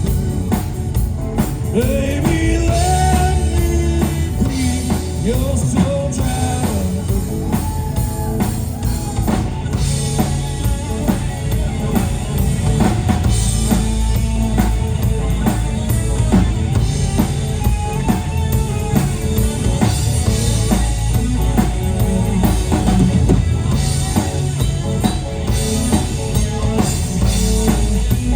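Rock band playing a song: drum kit with bass drum, and a bass line, with a gliding sung or lead melody over it in the first several seconds.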